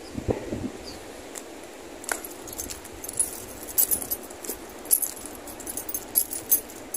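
Light metallic jingling and clicking at irregular intervals, the sound of small metal objects jostling as someone walks, over a faint steady hiss.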